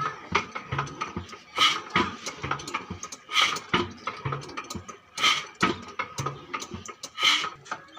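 Old 22 HP Ruston Hornsby stationary diesel engine turning slowly during a hard start. Low thumps come about twice a second, and a loud sharp exhaust bang about every two seconds as the engine fires on only some strokes.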